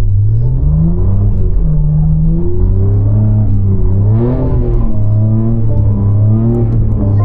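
BMW G80 M3 Competition's twin-turbo 3.0-litre straight-six revving up and falling back several times, with a sharper climb about four seconds in, as the wheels spin in snow without traction.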